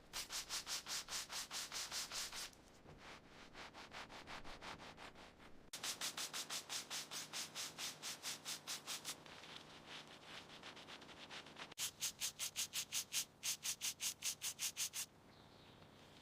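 Rapid back-and-forth scrubbing strokes on a rusty steel sword blade, about five or six a second, in three loud runs with softer rubbing between. The scrubbing stops shortly before the end.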